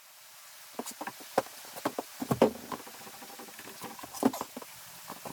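Irregular light knocks and clatter from wooden trim molding and tools being handled while the molding is fitted above a door, with a few louder knocks about a second and a half, two and a half and four seconds in.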